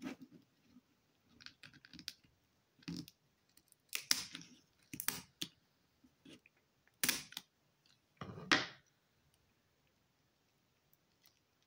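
Kitchen shears snipping through the shell of a raw spiny lobster tail, cutting down the middle in a run of irregular sharp snips, the loudest between about four and nine seconds in.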